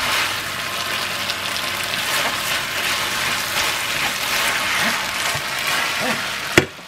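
Rice noodles and beef sizzling in a nonstick frying pan with a splash of water just added, stirred and scraped with a wooden spatula. A single sharp knock near the end, after which the sizzle is much quieter.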